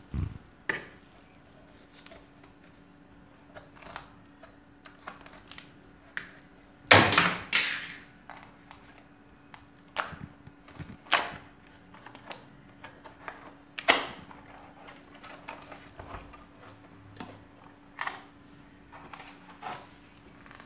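A small cardboard product box being handled and opened by hand: scattered taps, scrapes and paper rustles, the loudest a scraping burst about seven seconds in. A faint steady hum sits underneath.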